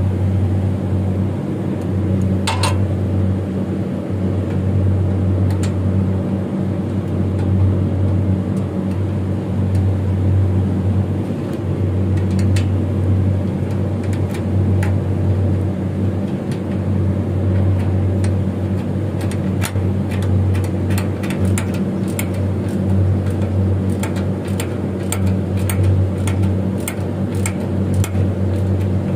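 Steady low hum of running machinery, with sharp metallic clicks of a ratchet wrench turning a fitting on chiller pipework: a few single clicks early, then a run of many quick clicks in the second half.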